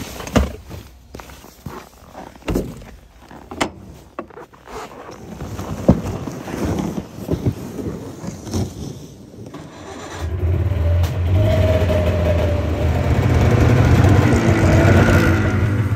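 A few knocks and clatter, then about ten seconds in a Polaris snowmobile engine starts and runs steadily, its low hum the loudest sound near the end.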